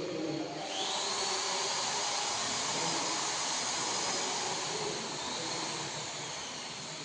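A high-speed electric motor, such as a power tool's or blower's, spinning up just under a second in with a rising whine, then running steadily with a loud rushing hiss.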